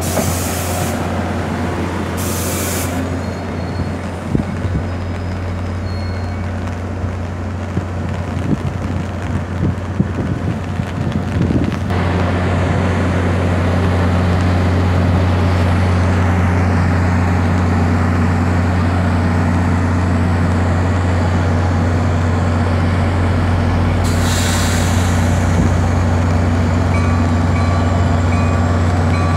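GP40PH-2B diesel locomotive of a commuter train running with a steady low hum that grows stronger partway through. Short hisses of air brake release twice near the start and once more near the end.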